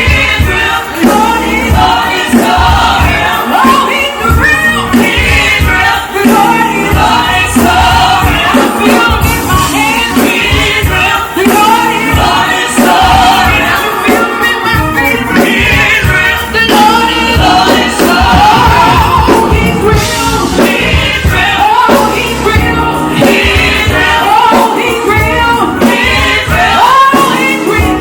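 Live gospel music: a worship band playing with a group of singers.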